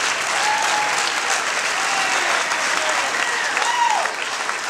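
Audience applauding, a dense run of many hands clapping, with a few voices calling out over it.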